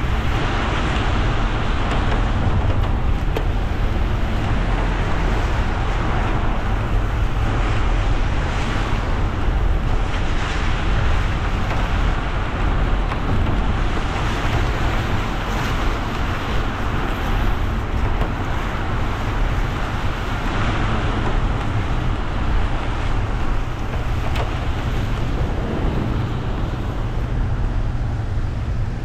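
A car driving on wet roads in the rain: a steady low rumble with the hiss of tyres on wet tarmac.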